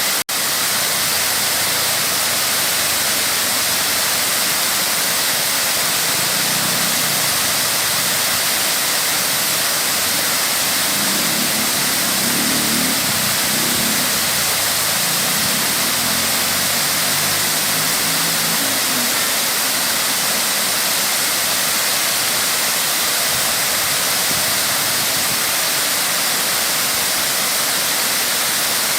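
Waterfall rushing steadily. A fainter low rumble comes up and fades away again in the middle.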